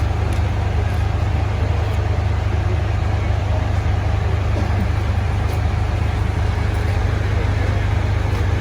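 A large engine runs steadily with a constant low hum, typical of fire apparatus idling or pumping at a fire scene.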